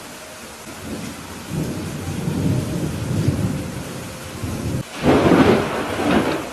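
Steady rain with thunder: a low rolling rumble builds from about a second and a half in, then a louder, sharper thunderclap comes near the end.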